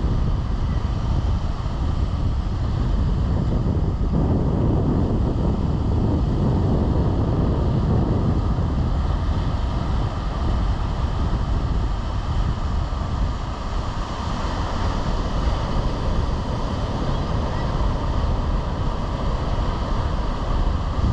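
Wind buffeting the microphone, a steady low rush, over the wash of Atlantic surf on a sandy beach.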